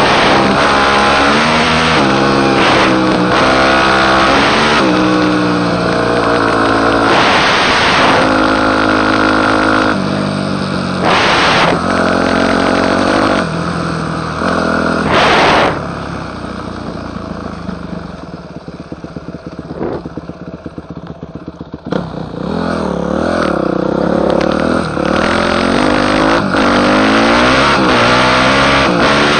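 Yamaha YZ250F four-stroke single-cylinder dirt bike engine riding along, its pitch rising and stepping down again and again as it accelerates and shifts through the gears. About halfway through it falls off on a closed throttle for several seconds, with a fast ticking, then accelerates again.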